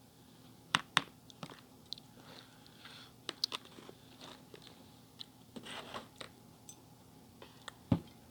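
A person eating close to the microphone: sharp crunching bites and chewing, loudest about a second in and again near the end.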